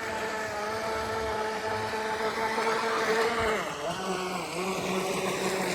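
RC boat's motor whining steadily on the water, its pitch dropping about three and a half seconds in.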